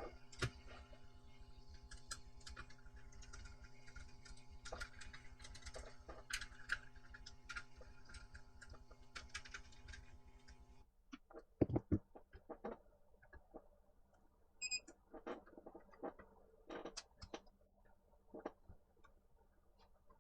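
Light, irregular clicks and taps of small laptop parts being handled and fitted, over a steady electrical hum that cuts off suddenly about eleven seconds in; after that the knocks are fewer and a little louder.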